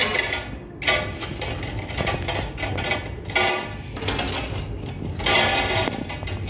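Irregular scratchy rubbing and rustling, about six bursts in a row: handling noise on a handheld phone's microphone.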